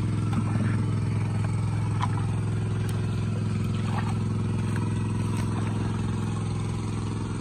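Small engine-driven water pump running steadily, a constant low hum, draining the pond. A few faint clicks and splashes from hands working in the mud.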